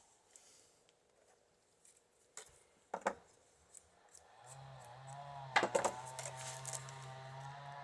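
A few sharp knocks and clicks of wicker rods being handled. About four seconds in, a steady motor hum with a wavering higher whine sets in and carries on.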